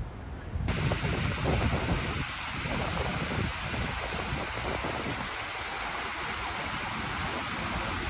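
Fountain jets splashing into a pool: a steady rush of water that cuts in sharply less than a second in.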